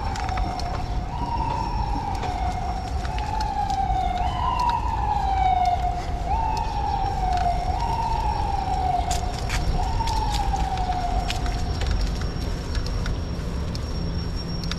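Emergency vehicle siren cycling over and over, each cycle jumping up quickly and sinking slowly, about every two seconds, until it stops about twelve seconds in. A steady low traffic rumble runs underneath.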